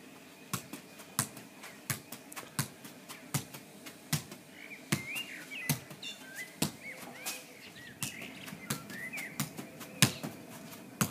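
A football being juggled with the feet: a sharp thud at each touch, coming at an even pace of about one every 0.7 seconds. Small birds chirp in the background.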